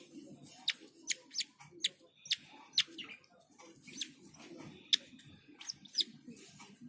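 Baby lovebird chicks squeaking in short, sharp, high chirps, about two a second at irregular spacing, while being handled for leg-ringing.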